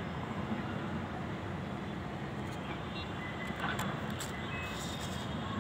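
Steady hum of distant city road traffic heard from high above the street, with a few faint short car-horn tones about three and four and a half seconds in.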